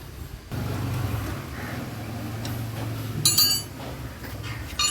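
A motorcycle engine running steadily with a low, even hum, starting about half a second in. Metal parts or tools give sharp ringing clinks about three seconds in and twice near the end.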